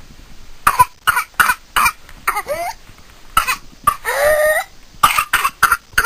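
A whooping cough (pertussis) coughing fit: runs of quick, sharp coughs broken by high-pitched rising whoops as the patient gasps in air. The longest whoop comes about four seconds in, and another run of coughs follows near the end.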